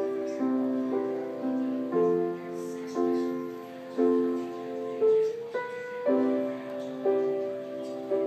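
Grand piano played at a slow, steady pace, a chord struck about once a second and left to ring into the next.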